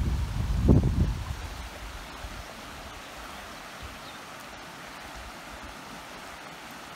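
Shallow river running over rocks in riffles: a steady rushing of water. For the first two seconds a loud low rumble, like wind or handling on the microphone, lies over it, then only the water goes on.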